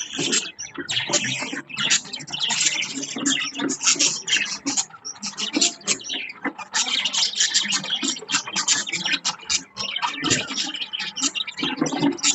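Several budgerigars chirping and warbling in a busy, continuous chatter.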